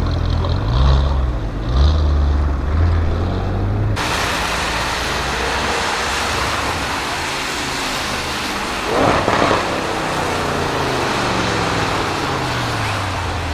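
Audi RS6 Avant C7's twin-turbo V8 through a Milltek exhaust: a couple of quick revs, then from about four seconds in a noisier stretch with the engine note rising, a louder burst past the middle, and the note falling away.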